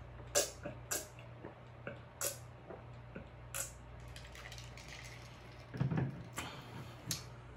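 A person gulping water from a glass: a series of wet swallowing clicks over the first four seconds. A louder, lower sound comes about six seconds in, followed by a couple of lip smacks.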